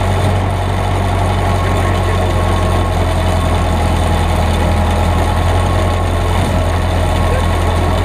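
Backhoe's diesel engine running at a steady speed while driving, heard up close from the hood beside the exhaust stack: a loud, even low hum that does not change.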